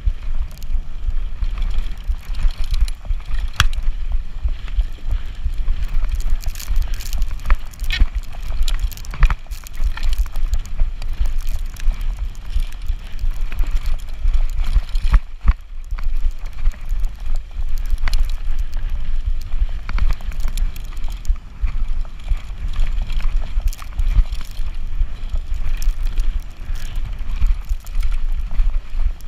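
Wind rumbling over the microphone of an e-bike ridden fast down a rough dirt trail, with frequent knocks and rattles from the bike jolting over bumps.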